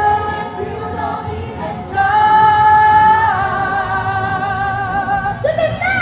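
Singing by a children's performing group: a slow vocal line of long held notes that waver in vibrato, the longest beginning about two seconds in, with a sliding note near the end.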